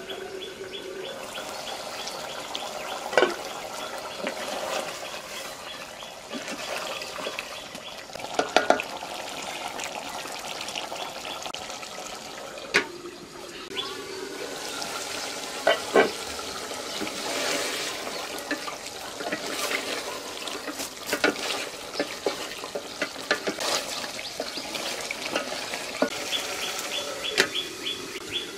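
Mutton curry bubbling in a pot covered with a clay lid, with scattered sharp clicks and knocks. A rapid high ticking comes near the start and again near the end.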